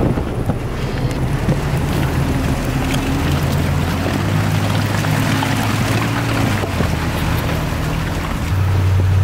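Pickup truck engine running at low revs as a Toyota Tacoma 4x4 drives slowly past through slushy mud and snow, its pitch rising and falling a little. A second truck's engine grows louder near the end.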